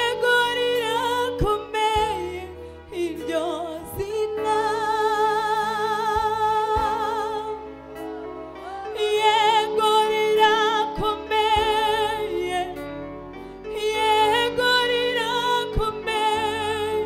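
Live gospel worship singing: female voices sing a slow song in long, held phrases with vibrato, over sustained instrumental backing.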